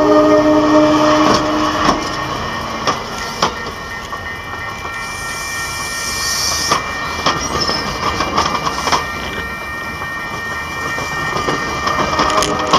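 Locomotive horn sounding a chord that cuts off about two seconds in, followed by a passenger train rolling past close by, its wheels clicking over rail joints. A hiss of air comes midway through.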